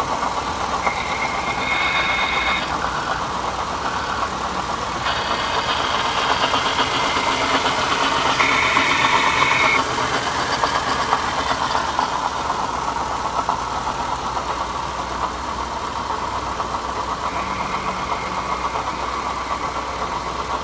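Mitsubishi Savrin 2.4-litre engine running at idle, checked for an abnormal noise. A high thin tone comes and goes about three times over the steady engine sound.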